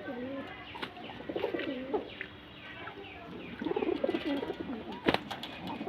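Pigeons cooing in repeated low, warbling phrases, with higher thin chirps from small birds over them. A single sharp click about five seconds in.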